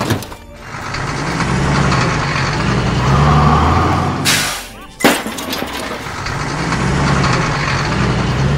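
Cartoon truck engine sound effect, running and revving in rising and falling surges. About four seconds in there is a short air-brake-like hiss, then a sharp knock, and the engine runs on.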